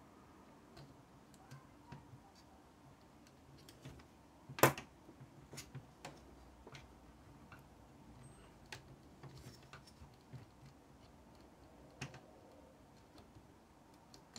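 Faint, scattered clicks and taps of fingers handling the plastic and metal parts of a cassette deck mechanism while working a drive belt onto its pulleys, with one sharper click about four and a half seconds in.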